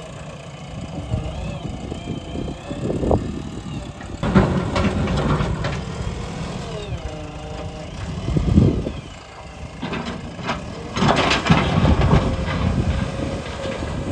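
Excavator's diesel engine working under load, with irregular surges around 4, 8.5 and 11–12 seconds in and a faint wavering whine above the rumble.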